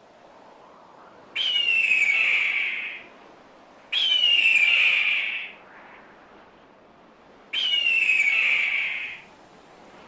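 A bird of prey screaming three times. Each scream is high, shrill and drawn out for about a second and a half: it starts abruptly, sags slightly in pitch, then fades out.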